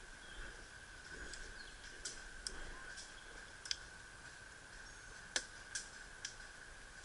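Faint sharp clicks, about six of them, scattered irregularly over a steady high tone; the loudest comes about five seconds in.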